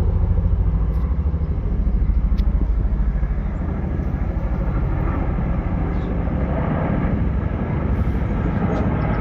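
Two tandem-rotor CH-47 Chinook helicopters flying overhead: a fast, low rotor beat over a steady rumbling engine drone, the beat strongest in the first few seconds.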